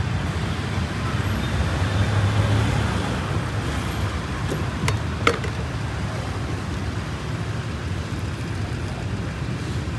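Steady street traffic noise, a low rumble of passing vehicles, with two sharp knocks about five seconds in.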